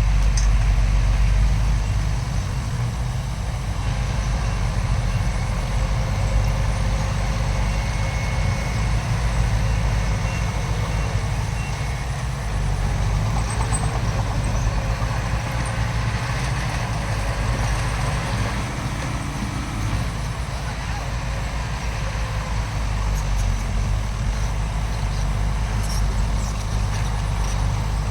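Diesel engine of heavy earthmoving machinery running steadily with a deep, even rumble; about two-thirds through, its pitch briefly rises and holds before dropping back.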